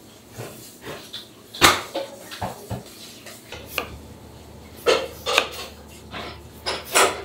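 Kitchen work: scattered sharp knocks and clinks of utensils, the loudest about one and a half seconds in. From about halfway, a kitchen knife slices through apple and taps on a cutting board several times, over a low steady hum.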